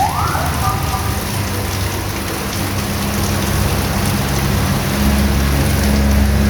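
Heavy rain falling steadily, with a vehicle engine's low hum underneath that grows louder about five seconds in. A brief rising tone with two short held notes sounds in the first second.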